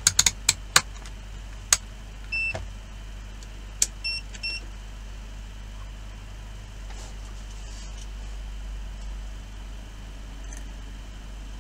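Digital multimeter's rotary range switch clicking as it is turned, followed by short electronic beeps from the meter: one about two and a half seconds in, then two close together about four seconds in. A steady low hum runs underneath.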